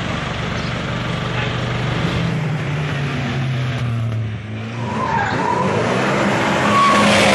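Race car engines revving: a steady engine note that sags a little in pitch, then after a break about four seconds in, engines revving up and growing louder towards the end.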